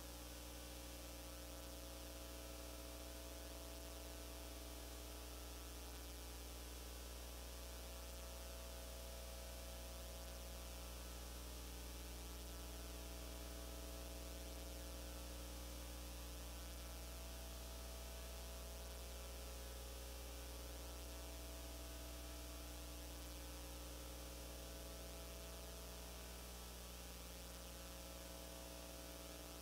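Steady low electrical hum with several fixed tones over a faint even hiss, unchanging throughout.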